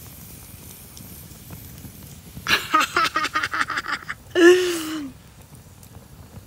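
A woman laughing heartily in quick, repeated bursts starting about two and a half seconds in. The laughter ends in a short drawn-out vocal sound that falls in pitch.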